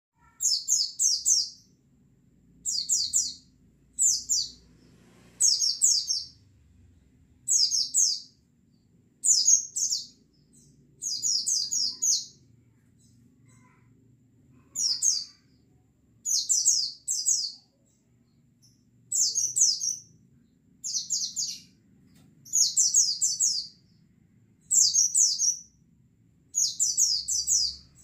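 Oriental white-eye (pleci) calling: short bursts of three to five rapid, high chirps, repeated about every one and a half to two seconds.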